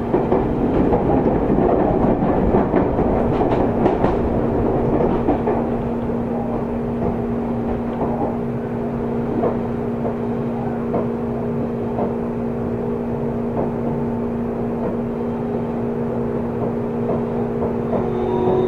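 Onboard running sound of a Seibu 30000 series electric train at speed: steady wheel-on-rail rumble with a constant hum and occasional clicks. The air conditioning adds a little noise. A rising whine begins near the end.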